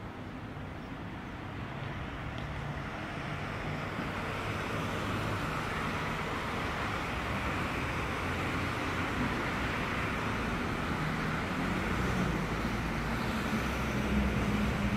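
Road traffic: cars driving along a multi-lane street, with tyre and engine noise slowly getting louder and a stronger low engine note near the end as a vehicle draws close.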